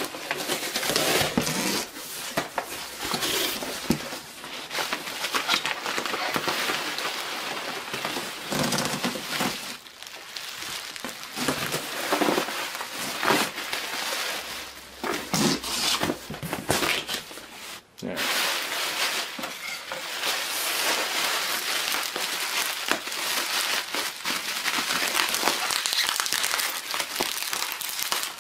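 Cardboard packing box being handled and an inner box pulled out, then bubble wrap being unwrapped: continuous rustling, scraping and crinkling with many irregular sharp knocks and crackles, steadier crinkling in the later part.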